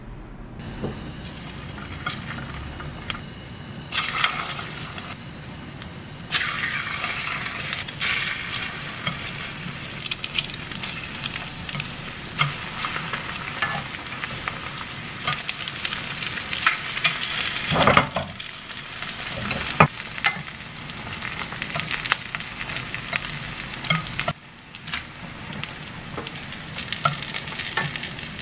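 Egg-and-flour-coated beef slices (yukjeon) sizzling and crackling in oil in a frying pan, starting a few seconds in, with wooden chopsticks clicking against the pan as the pieces are turned and one louder knock partway through.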